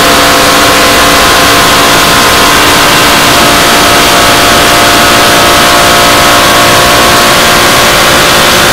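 Supercharged 430 cubic inch Dart-block V8 on methanol, with an 8-71 blower, running hard at land-speed pace, its engine note holding nearly steady under heavy wind rush.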